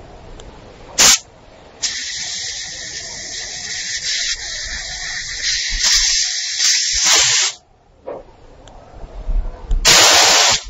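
Air hissing out of a tyre valve through a Badger tyre deflator: a short burst about a second in, then a steady hiss lasting about six seconds that cuts off suddenly, and another loud burst near the end.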